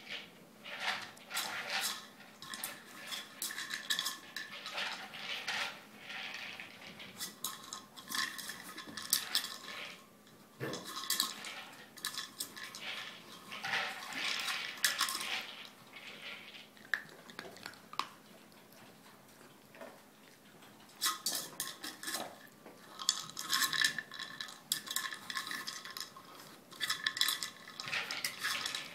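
Dry treats rattling inside hard plastic DogPyramid treat-dispensing toys as dogs nose and tip them over: bursts of quick clattering, with a quieter stretch a little past halfway.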